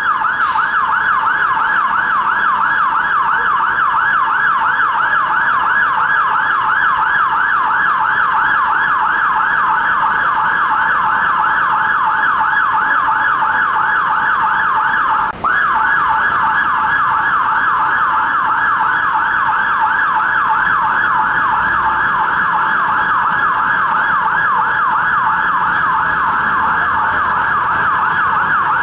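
Magirus aerial ladder fire truck's siren sounding a rapid, continuous yelp, with one brief break about halfway through.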